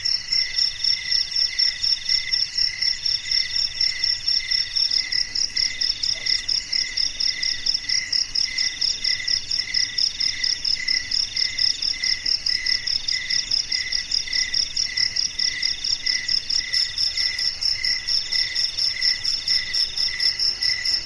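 Crickets chirping in a steady night chorus of several insects: a fast, continuous high pulsing, a lower chirp repeating about twice a second, and a longer trill broken by short pauses every couple of seconds.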